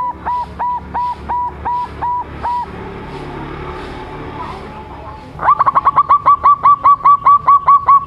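Young zebra dove (perkutut) singing its long song: a run of quick, evenly spaced staccato coos that stops about two and a half seconds in. After a pause, a longer, louder run of rapid coos starts about five and a half seconds in.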